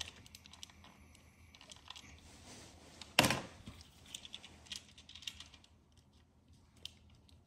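Small plastic clicks and rattles as a Beyblade top is worked onto a red Beyblade launcher and keeps slipping off, with one louder plastic clack about three seconds in.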